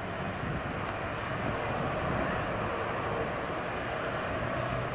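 Jet engines of an Airbus A330-300, Pratt & Whitney PW4168A turbofans, running steadily as the airliner taxis on the runway before takeoff: an even jet noise with a faint low hum and no change in power.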